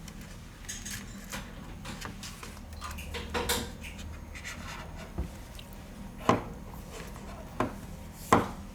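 Small clicks, taps and light scraping of hand tools and phone parts being handled while an HTC 10 smartphone is taken apart, with a sharp click about six seconds in and another near the end, over a faint steady hum.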